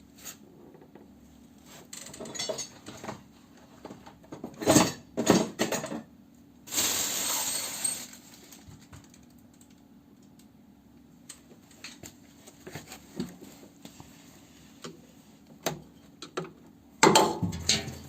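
A screwdriver and metal parts being worked on a washing machine's drive motor: scattered clinks and knocks, the loudest clusters near a third of the way in and at the end, with a scraping rasp about a second long near the middle as the motor is prised loose.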